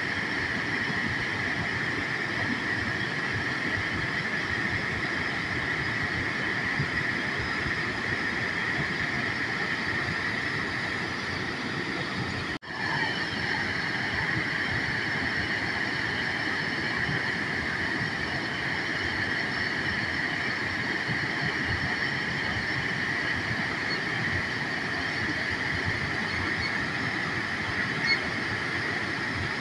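Waterfall rushing steadily, with a momentary dropout about 13 seconds in.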